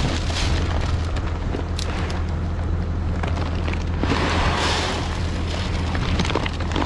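Seed corn pouring from a paper bag into a corn planter's plastic seed box, a rattling hiss that swells about four seconds in, over a steady low rumble.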